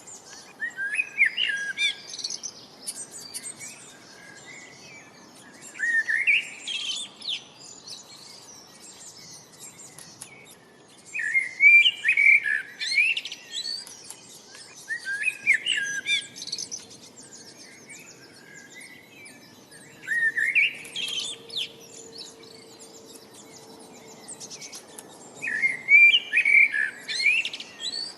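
A songbird singing short, quick, warbled phrases, one about every four to five seconds, with a faint steady background hiss between them.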